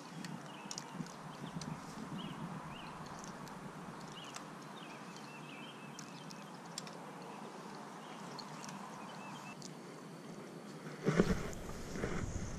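Faint pondside ambience with scattered short, high chirps and a few light clicks. About eleven seconds in, a sudden louder rumbling rustle from handling or wind on the microphone takes over.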